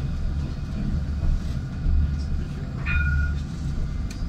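Citadis 302 tram running, heard from the driver's cab as a steady low rumble that swells and eases. A short high tone sounds about three seconds in, and a sharp click comes just before the end.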